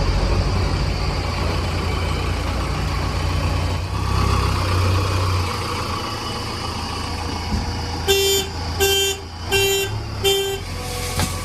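Heavy vehicle engine running, its rumble easing off about halfway, then a vehicle horn tooted four times in quick succession near the end, each toot short and at one steady pitch.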